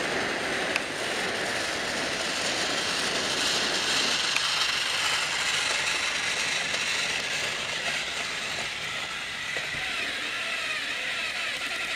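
Battery-powered Trackmaster toy train running along plastic track: a steady whir of its small geared motor with clattering from the wheels and trucks.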